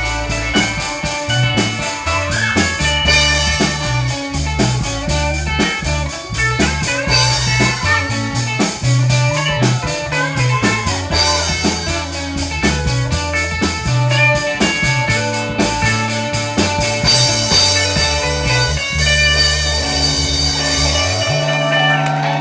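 Instrumental passage of a pop song: guitar over bass and a drum kit keeping a steady beat, with no singing.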